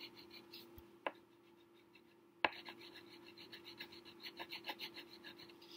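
Wax crayon scribbling back and forth on paper, a quick rhythmic scratching of many short strokes. It pauses briefly after about a second and picks up again with a sharp tap about two and a half seconds in.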